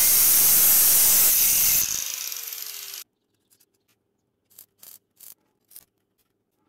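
Angle grinder cutting disc slicing through a steel circular saw blade: a loud steady hiss. About two seconds in, it comes off the cut and winds down with a falling whine, then cuts off suddenly. Near the end come four short, faint crackles as a stick welder's arc is struck.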